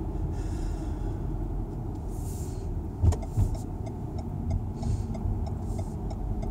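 Car interior road noise: a steady low rumble of engine and tyres while driving, with two short thumps a little after three seconds in. From about three seconds in, a regular light ticking a bit more than twice a second, typical of the turn indicator as the car moves into a left-turn lane.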